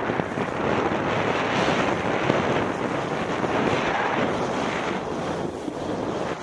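Wind rushing over an action camera's microphone at speed down a snow slope, with the steady hiss of the rider's edges scraping over the snow, swelling and easing with the turns.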